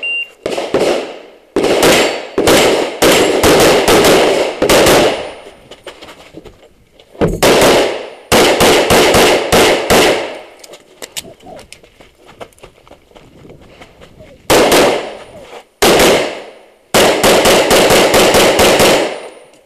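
Pistol gunfire from the shooter's own position in an IPSC practical-shooting stage: rapid strings of shots, several a second, broken by short pauses between strings.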